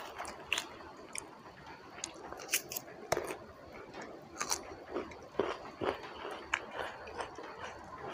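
A person chewing and biting raw vegetables, close to a clip-on microphone, with irregular sharp crunches and mouth clicks.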